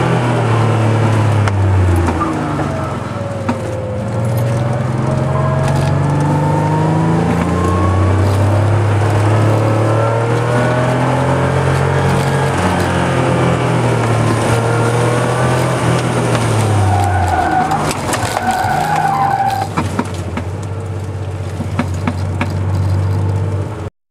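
Porsche 911 Carrera 3.2's air-cooled flat-six heard from inside the cabin under hard driving, its pitch climbing and dropping several times through acceleration, gear changes and braking. A brief tyre squeal about two-thirds of the way through; the sound cuts off suddenly near the end.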